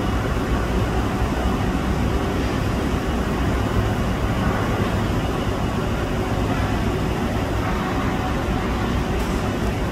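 Steady low rumble and hiss of harbour background noise at a berthed cruise ship, with no distinct events.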